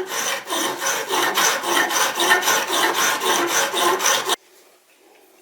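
Sharpening stone rubbing back and forth along a vegetable peeler's blade in rapid strokes, working down the worn middle of the edge; it stops suddenly a little over four seconds in.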